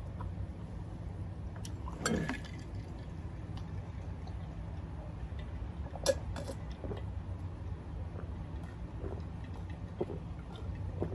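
Eating ramen noodles: wet slurping and mouth sounds, with a louder slurp about two seconds in, and a few light clinks and ticks of a utensil or glass, over a steady low hum.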